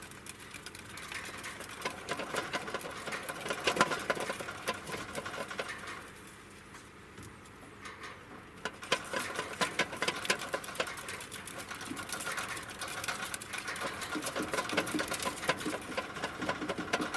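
Plastic exercise wheel rattling with rapid clicks as a degu runs in it. The rattle eases off for a couple of seconds about six seconds in, then picks up again.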